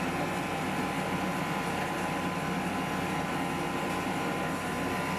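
Steady hum of running kitchen machinery in a field kitchen, with a faint steady whine above it.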